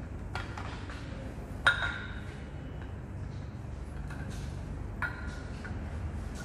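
Sharp metallic clinks with a short ring, the loudest about a second and a half in and another about five seconds in, as a Rockpresso manual lever espresso maker is worked by hand, over a low steady rumble.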